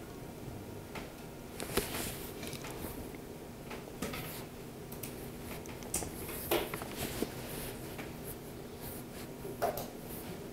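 Several students writing notes with pens on paper: scattered faint scratches, taps and rustles over quiet room tone.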